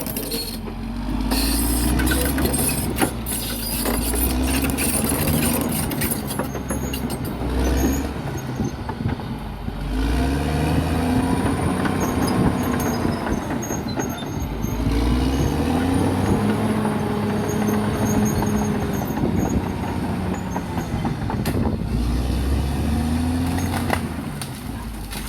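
Bulldozer's diesel engine working hard, its pitch rising and falling several times as the load comes on and eases, with scattered knocks and clanks over it.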